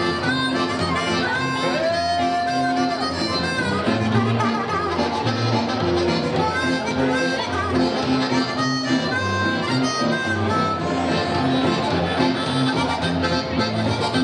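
Live hillbilly boogie band playing an instrumental break: a harmonica played into the vocal microphone takes the lead over accordion, archtop guitars, upright double bass and drums.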